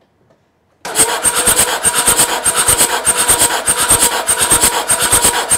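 Mercedes-Benz turbo diesel engine cranking over on its starter motor, starting about a second in. The starter whines under a quick, even chugging beat. This is cranking for a compression test on cylinder two, which reads a healthy 385 psi.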